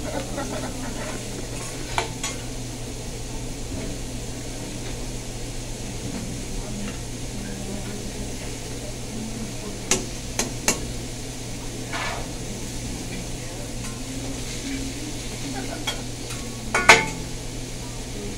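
Vegetables sizzling on a steel teppanyaki griddle while metal spatulas scrape and clack on the hot plate, over a steady low hum. Sharp clacks come about two seconds in, in a quick cluster around the middle, and loudest near the end.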